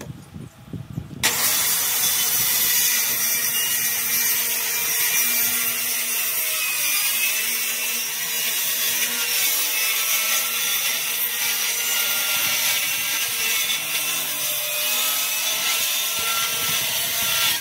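Corded circular saw starting about a second in and cutting a long straight line through a sheet of plywood, running steadily, then stopping just at the end.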